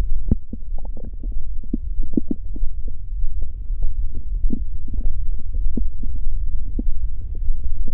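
Human stomach growling: a steady low rumble under many short, irregular gurgles.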